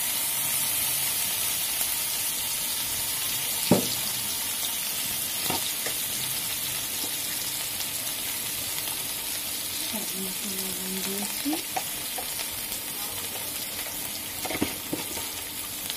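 Sliced onions and dried red chillies frying in a nonstick pan, a steady sizzle. A metal spatula clacks sharply against the pan about four seconds in, with lighter knocks later on.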